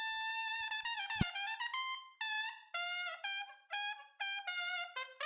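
Background music: a solo brass melody, one note held for about the first second, then a run of short separate notes, several of them bending in pitch.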